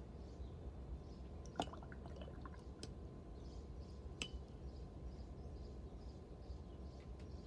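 Quiet steady background rumble with a few small sharp clicks and taps, the clearest a short drip-like plink about a second and a half in and another click about four seconds in.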